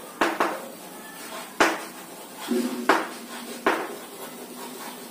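Chalk tapping and scratching on a chalkboard as words are written: a handful of sharp taps about a second apart, each with a short scratchy trail.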